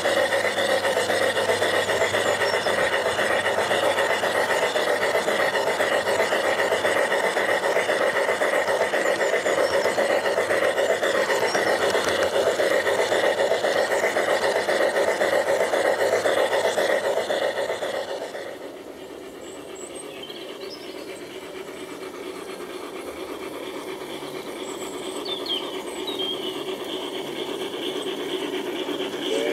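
LGB G-scale model train running close by: a steady whirring of its electric motor and gearing with the wheels rubbing on the rails. About eighteen seconds in it becomes much quieter and more distant, with a few faint high chirps.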